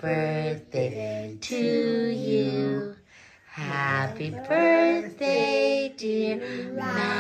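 Singing: a woman's voice together with a child's, in a slow melody of long held notes.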